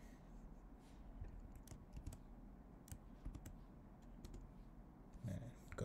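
Faint, scattered clicks of computer keys and mouse buttons as a terminal command is entered, a dozen or so separate clicks at uneven intervals.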